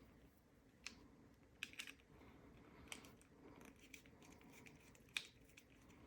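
Faint, scattered small metal clicks and taps of a screwdriver working worn screws out of a padlock body, the sharpest click about five seconds in.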